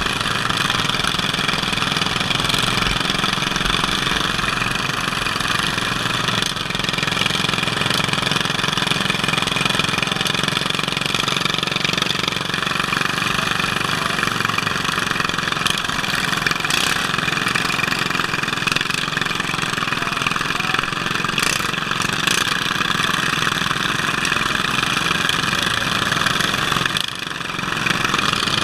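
Racing lawn tractor's engine running steadily under way, heard from the driver's helmet, with a brief dip in level near the end.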